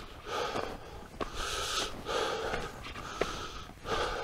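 A hiker breathing hard while climbing a steep uphill grade: heavy breaths in and out, about one a second. He is out of breath from the climb.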